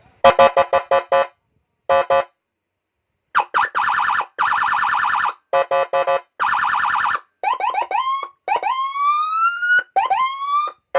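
Electronic police-escort siren, a 45-watt module driving a 25-watt speaker, stepping through its tones: a run of short blips, then a fast warble, then whoops that climb in pitch near the end.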